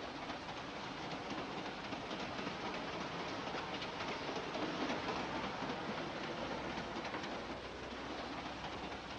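Steady running noise of a moving passenger train: an even rumble and rattle of the carriage, with faint clatter from the wheels.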